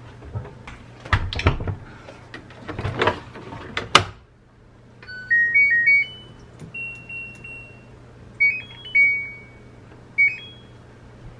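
Clothes being pushed into an LG Tromm front-loading washing machine, with the door shut about four seconds in; then the machine's electronic beeps as it is set and started: a short rising tune, single beeps as the program dial is turned and buttons pressed, and one longer held tone.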